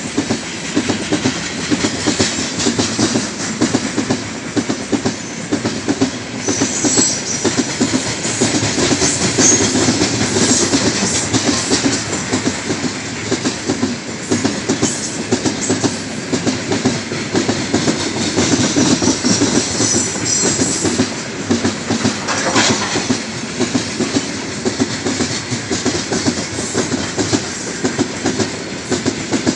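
Heavy loaded freight train of open gondola wagons rolling past at close range, a steady rumble with the fast, repeating clickety-clack of wheelsets over rail joints.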